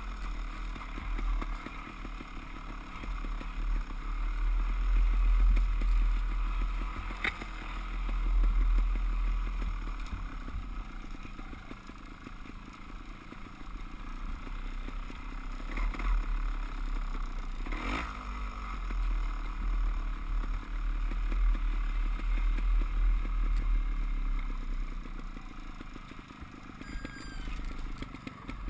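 Off-road motorcycle engines running along a rough dirt trail, the engine sound rising and falling with the throttle over heavy low wind rumble on the microphone. There are a few sharp knocks, one about a quarter of the way in and two more past halfway.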